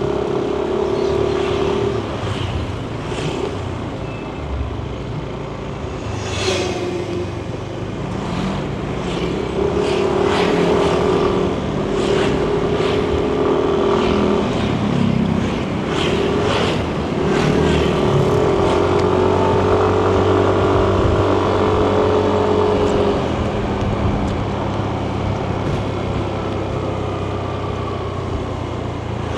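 Yamaha Nmax 155 scooter's single-cylinder engine running under a rider on the road, its pitch slowly rising and falling as the scooter speeds up and eases off, with road and wind noise underneath.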